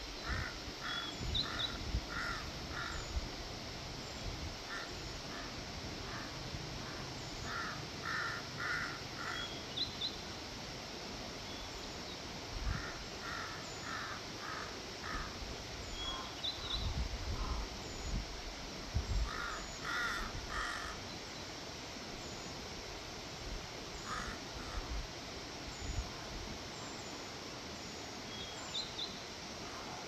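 Crows cawing in runs of three to five short, harsh caws, with pauses of a few seconds between runs, over a steady background hiss.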